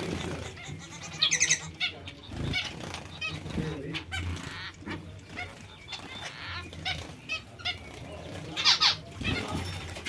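Zebra finches and society finches calling: a run of short chirps, with louder calls about a second in and again near the end.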